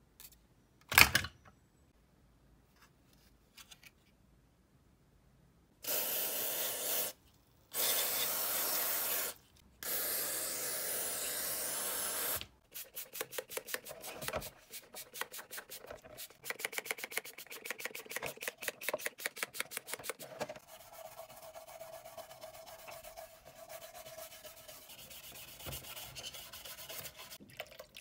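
Cleaning the plastic housing of a Makita battery charger: three long hissing bursts, then rapid back-and-forth rubbing strokes, several a second, that settle into a steadier scrubbing. A single sharp click comes about a second in.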